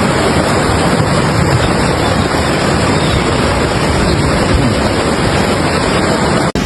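Loud steady rushing of fast-flowing floodwater, cutting off suddenly near the end.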